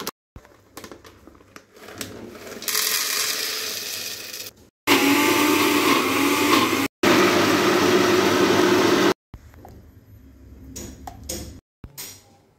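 Countertop electric blender running loud and steady, grinding powdery ingredients in its jar, in bursts that cut off abruptly. Quieter knocks and clinks of kitchenware follow near the end.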